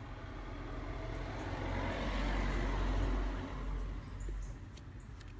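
A road vehicle passing by: engine and tyre noise swell to a peak about halfway through, then fade away.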